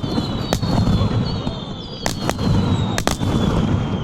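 Aerial fireworks going off: about five sharp bangs, the later ones coming in close pairs, over a continuous low rumble of further bursts.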